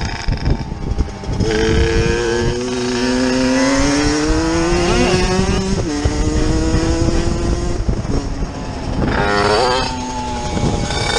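Motorcycle engine accelerating: its pitch climbs steadily for several seconds, drops sharply about six seconds in as it shifts gear, then climbs again, with wind noise throughout. Near the end there is a brief quick rise and fall in pitch.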